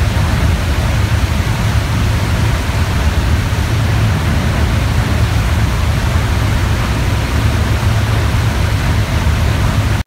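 Steady, loud rushing of a frigate's churning wake water, with a heavy low rumble underneath.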